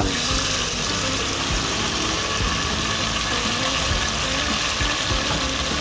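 Blended tomato, garlic and ginger poured into a pot of hot oil and fried onions, sizzling steadily.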